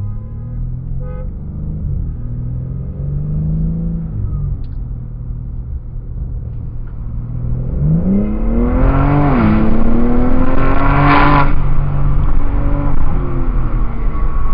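Sports car engine accelerating hard. The revs climb, dip sharply once at a gear change, then climb again to the loudest point about two thirds of the way in, before easing back to a steadier note.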